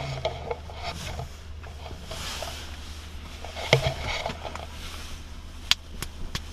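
Inside a Kia car: a steady low hum of the idling engine, with a few sharp clicks and knocks, the loudest a little past the middle and three more near the end.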